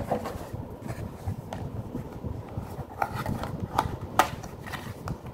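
Scattered light clicks and knocks of the gimbal and its packaging being handled on a wooden tabletop, the sharpest one near the end, over a steady low hum.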